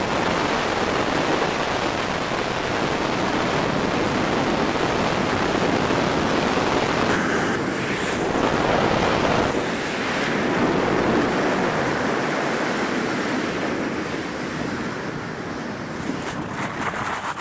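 Wind rushing over a skydiver's helmet-mounted camera microphone during the jump, a steady loud noise that eases somewhat in the last few seconds.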